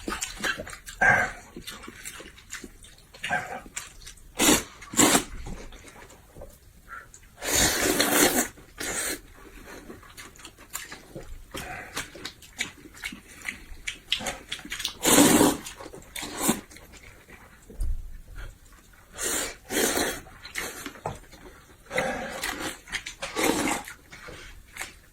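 Close-miked eating sounds: irregular bursts of chewing and mouth noise. The longest and loudest come about eight seconds in and again about fifteen seconds in.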